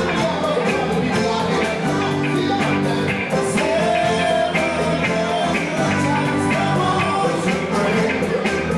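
A live band playing upbeat rock-and-roll-style music with a steady drum beat.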